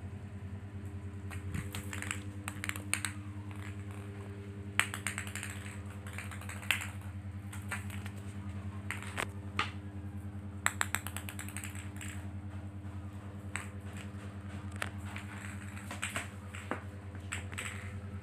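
Scattered light clicks and taps, some in quick little clusters, over a steady low hum.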